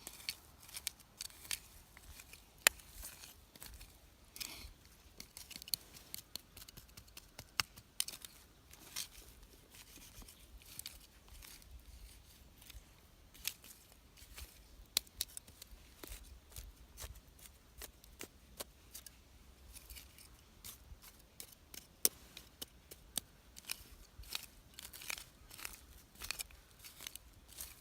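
Wood fire crackling, with sharp irregular snaps and pops.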